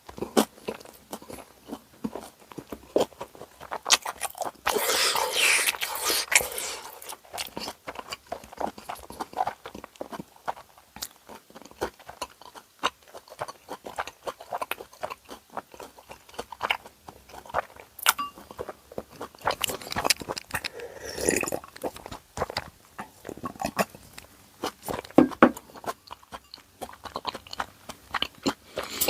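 Close-miked eating sounds of a meal of tonkotsu ramen and karaage: chewing and biting with crunchy bites and many short wet mouth clicks. Longer noisy stretches come about five seconds in and again about twenty-one seconds in.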